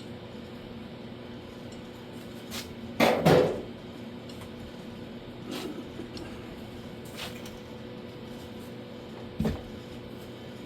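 Occasional clunks and clatters of sheet metal and hand tools being handled, the loudest a double knock about three seconds in, with a faint steady hum underneath.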